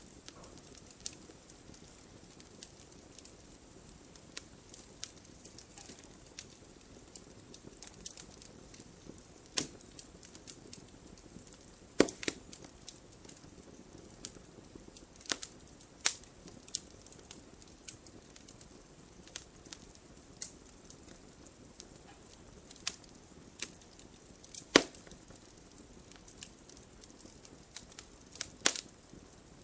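Wood fire burning in a fireplace: a low steady hiss with irregular crackles and a few loud sharp pops.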